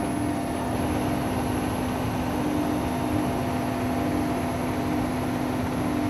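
Helicopter engine and rotor noise heard from inside the cabin: a steady drone with constant humming tones and no change.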